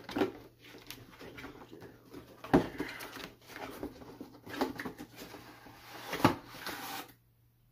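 Cardboard figure box being opened by hand: packaging rustling and scraping, with a few sharp snaps, the loudest about two and a half and six seconds in. It stops suddenly shortly before the end.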